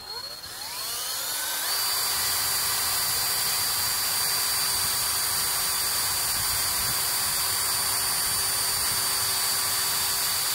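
DeWalt 18V cordless drill spinning up with a rising whine, then running at a steady high speed as it bores a small pilot hole through a pipe, stopping suddenly at the end.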